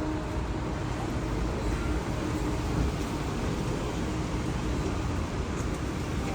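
Steady low rumble of a passenger ferry's engine, with a faint constant hum running through it.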